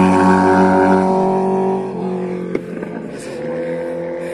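Motorcycles passing on a road, their engines running loud with a steady note that drops in pitch about a second in and again near two seconds, then fades.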